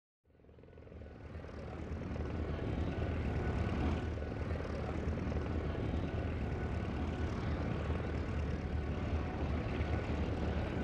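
Lockheed Neptune's Wright R-3350 radial engine being turned over on its starter, the propeller turning slowly just before the engine catches. A steady low rumble fades in over the first two seconds.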